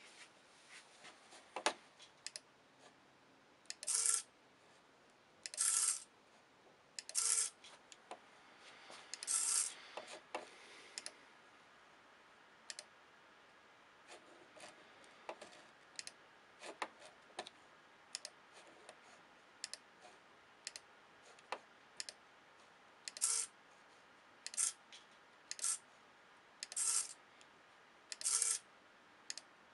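Computer mouse clicking, with short whirring bursts from the hobby servo that lifts and lowers the brush pen on a pen plotter. The servo moves about nine times, in two groups.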